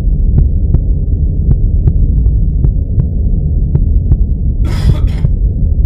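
A loud, deep throbbing hum with faint ticks, muffled so that only the low range comes through, with a brief hiss about five seconds in.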